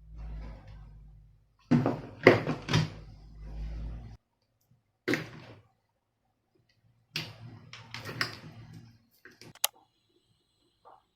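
Irregular clusters of sharp plastic clicks, knocks and scraping as a soundbar's casing and parts are handled and pried apart, with a low hum under some of them.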